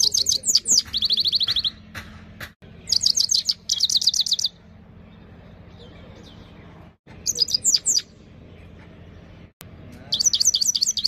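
Himalayan (grey-crowned) goldfinch singing: four bursts of rapid twittering notes separated by pauses of a second or more, the first ending in a fast, even trill.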